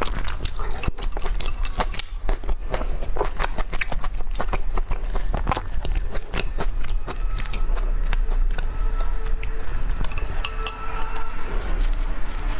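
Close-miked eating sounds: many small wet clicks and crackles from chewing roast duck wrapped in a thin pancake, along with chopsticks and fingers handling the wrapper and duck slices. A steady low hum lies under it.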